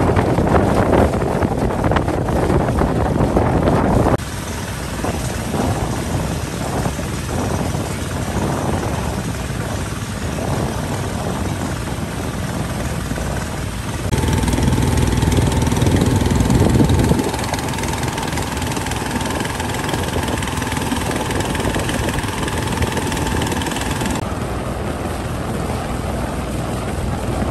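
Small boat's engine running steadily as the boat moves across open water, with wind buffeting the microphone. The sound changes abruptly several times, with the engine's steady drone plainest in the middle stretch.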